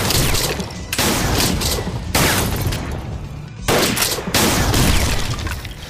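Film gunfight sound effects: dense, rapid gunfire in several loud volleys, each starting sharply, about a second or two apart, then stopping at the end.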